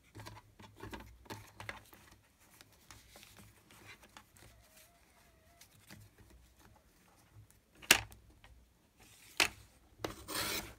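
Paper being handled and shifted on a craft table: soft rubbing and small clicks, a sharp tap about eight seconds in, another about a second and a half later, and a short rustle near the end.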